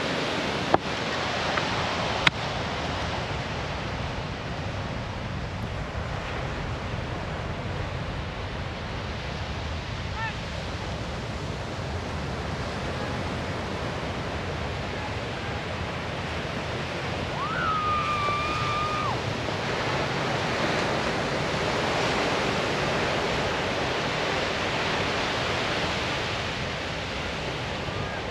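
Falcon 9 first stage's nine Merlin engines heard from far off as a steady low rushing rumble, swelling a little past the middle. Two sharp clicks come near the start, and a short whistle-like call comes about two-thirds of the way in.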